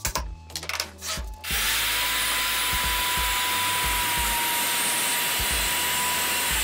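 A few knocks and clicks, then a Stanley handheld circular saw starts about a second and a half in, comes up to speed with a rising whine and runs steadily, cutting through a 15 mm melamine board. Its pitch starts to drop right at the end.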